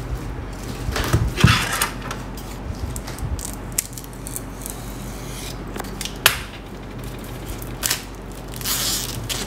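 Snap-blade utility knife cutting the plastic wrapping around a stack of books, with rustling and crinkling of the wrap and a few sharp clicks.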